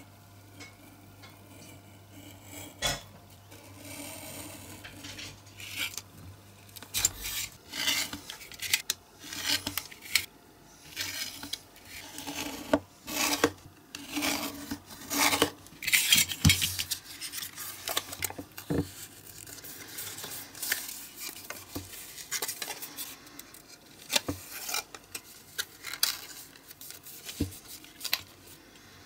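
Snap-off craft knife cutting printed card along an aluminium ruler on a cutting mat: irregular short scraping strokes with sharp clicks and clinks of the metal ruler being shifted.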